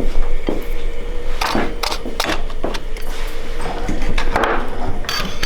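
Hard parts and tools being handled on a workbench: a string of irregular knocks and clinks over a steady low hum.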